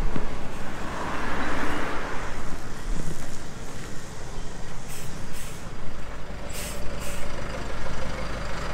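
A road vehicle's engine running steadily, with a rush of hiss about a second in and a few short hisses a little past the middle.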